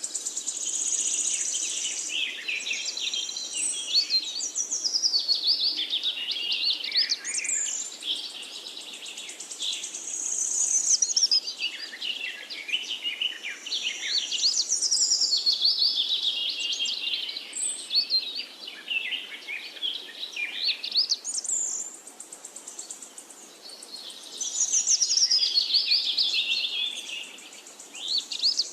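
Songbird song: long phrases of fast, high warbled notes sliding up and down, one phrase after another with short pauses between.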